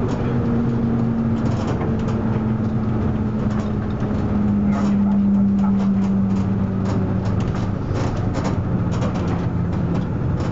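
Leyland Atlantean double-decker bus running along the road, heard from inside at the front of the bus. The engine note hums steadily and drifts slowly lower through the middle, over road noise and scattered light clicks.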